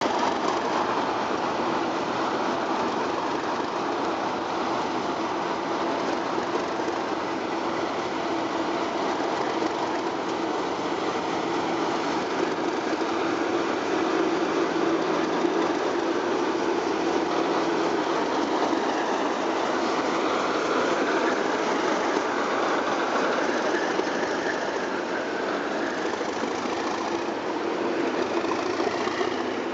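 Network Rail test train departing slowly past at close range: the Class 97/3 locomotive's English Electric V12 diesel engine running under power, then the test coaches' wheels clattering over the rail joints. The sound is steady, with a second locomotive's engine growing louder near the end.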